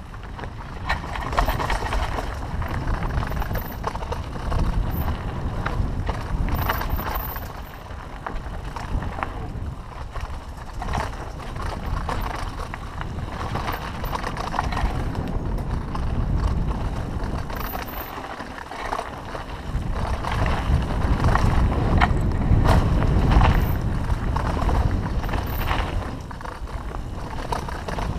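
Mountain bike riding down a dirt trail: wind buffeting the microphone in waves, with tyres rolling over the ground and frequent rattles and knocks from the bumps.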